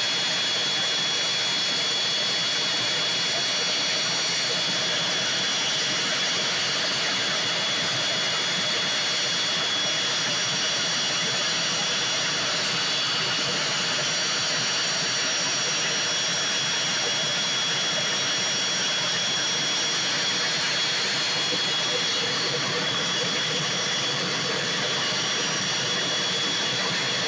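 Aircraft turbine engine running steadily at idle: a constant rushing noise with a high, unchanging whine.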